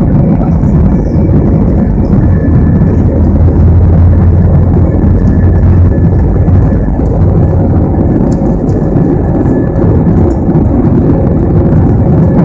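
Airbus A321 engines at takeoff power, heard from inside the cabin during the takeoff roll: loud, steady engine noise with a deep low rumble.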